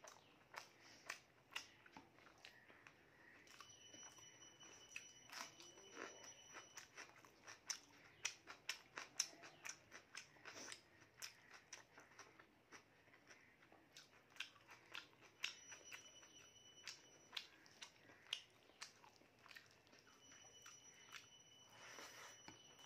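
Close-up mouth sounds of someone eating rice and mutton curry by hand: chewing and lip smacks made up of many short clicks, busiest from about seven to eleven seconds in.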